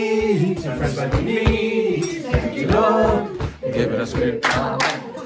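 A group of people singing together at a family dinner table, unaccompanied, holding long notes, with a regular low beat under the voices.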